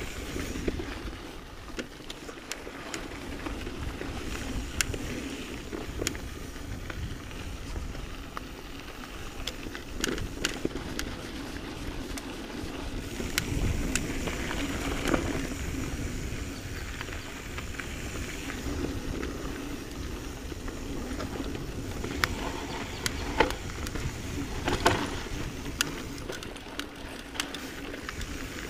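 Mountain bike rolling over a dry, rocky dirt trail: a steady rumble of tyres on dirt with frequent sharp clicks, knocks and rattles from the bike as it goes over rocks and bumps.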